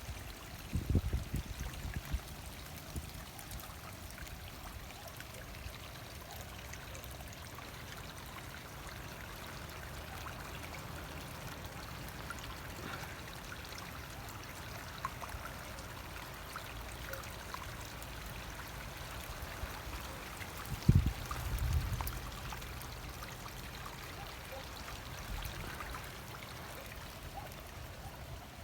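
Rainwater runoff pouring steadily through a hedge off a waterlogged field in heavy rain. A few low thumps come about a second in, and a louder one about three quarters of the way through.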